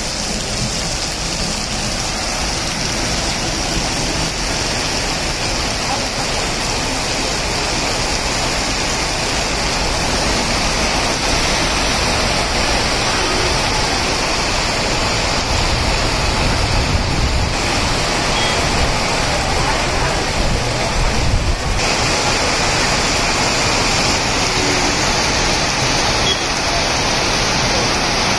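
Heavy rain pouring down, a steady dense hiss of drops on wet pavement and the shelter roof, with runoff spilling from the roof edge. A low rumble swells and fades past the middle.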